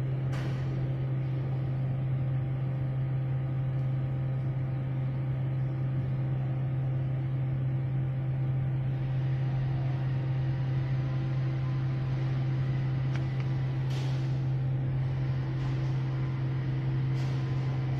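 Rice milling plant machinery running: a steady low motor hum with several fixed tones over it, broken by a few short hisses near the start and toward the end.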